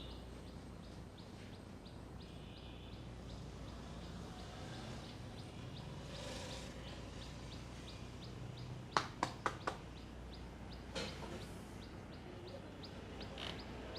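Four sharp cracks in quick succession about nine seconds in, with a single softer one shortly after, from a barber's hair and knuckle cracking during a head massage. Faint, evenly repeated high chirping runs underneath.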